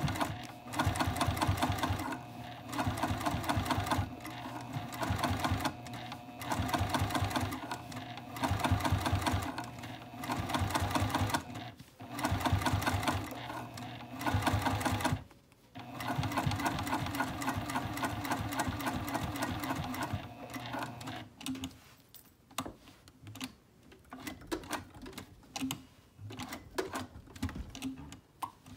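Juki sewing machine top-stitching along zipper tape in short runs of rapid stitches with brief pauses between them, then one longer steady run. About two-thirds of the way through the machine stops, leaving only faint scattered clicks.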